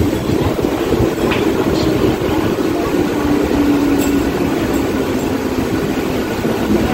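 Mumbai suburban electric local train running, heard from on board: a steady rumble of wheels on the track with a low hum and a few faint clicks.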